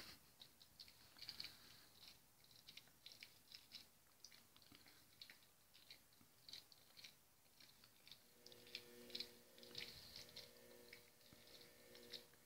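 A Shih Tzu chewing a meat treat wrapped around a rawhide stick: soft, irregular clicks and crunches of its teeth working on the tough chew.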